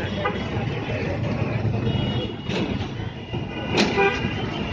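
Street traffic running past: a continuous low rumble of vehicle engines, with short horn-like tones, the clearest near the end.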